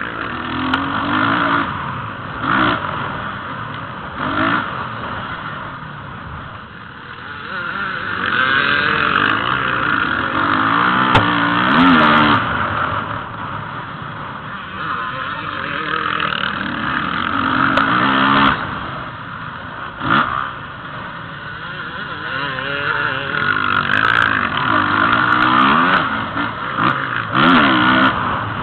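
Motocross bike engines revving up and falling back again and again as the bikes accelerate and brake through the corners, heard from on board a following bike.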